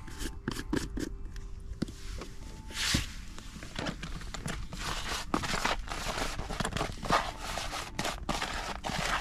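Hands stirring and rubbing dry paste flour and fibre together in a bait bowl: an irregular run of dry scraping and rustling with soft clicks.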